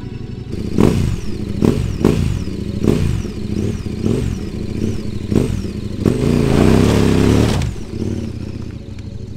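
Adventure motorcycle engine revved in a series of sharp throttle blips, each one falling away, then held at high revs for about a second and a half as the bike pulls away on dirt, before cutting off.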